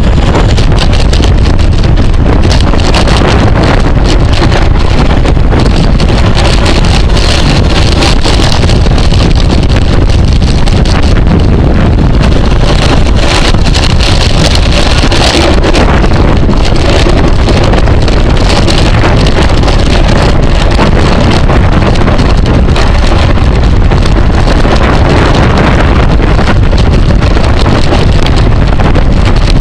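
Loud, steady wind noise buffeting the microphone of a camera riding along on a racing bicycle at speed.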